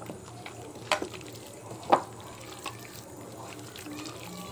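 A hand squishing small chicken pieces through a wet batter of arrowroot flour, maida and water in a bowl, with two sharp clicks about a second apart.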